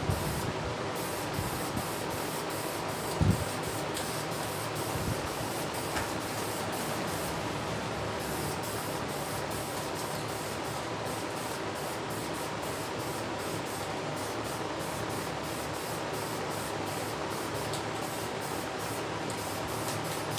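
Aerosol spray-paint can hissing steadily as it lays a thin coat of paint on a metal transmission case. There is a single thump about three seconds in.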